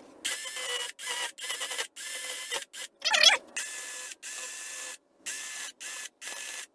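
Battery-powered mini cordless chainsaw run in about a dozen short trigger bursts, the motor and chain starting and cutting off each time as the chain carves into a wooden block.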